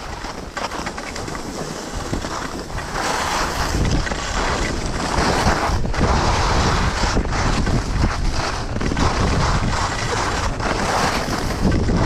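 Wind buffeting a chest-mounted action camera's microphone, with skis hissing and scraping over snow at speed. The rush grows louder about three to four seconds in as the skier picks up speed.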